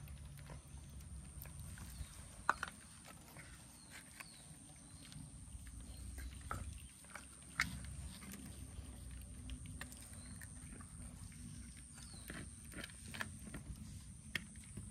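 Cats eating, with irregular sharp clicks of chewing over a steady low rumble.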